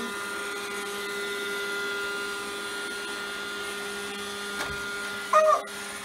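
Roomba robot vacuum running: a steady motor whine made of several held tones. Near the end a short, loud pitched sound with a falling pitch breaks in.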